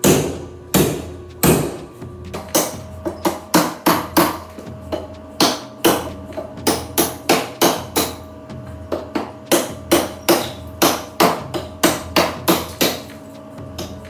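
Bowie knife chopping into a softwood board in an edge test: a rapid run of sharp wooden thwacks, about two to three a second, as the blade cuts a deep notch into the board.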